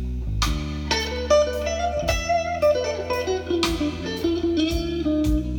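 A blues record playing on a turntable: an electric guitar lead over bass and drums, in an instrumental break after the singing.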